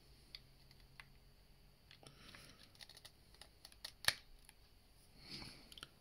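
Faint clicks and plastic handling sounds as a USB charging cable is worked into the port on the base of a cordless hair dryer, with one sharper click about four seconds in.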